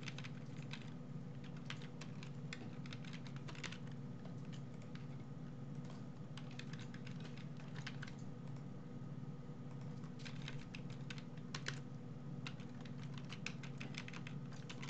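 Typing on a computer keyboard: irregular runs of keystrokes, bunched in quick bursts in places, over a steady low hum.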